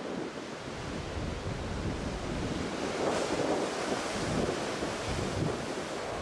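Heavy storm surf breaking, with a strong onshore wind buffeting the microphone; the surf noise swells about three seconds in.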